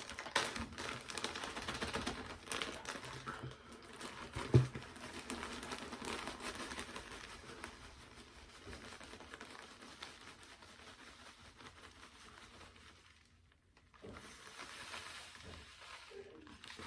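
Crinkling and rustling as a bag of dry flake soil is handled, with one sharp knock about four and a half seconds in. The rustling stops briefly near the end, then starts again.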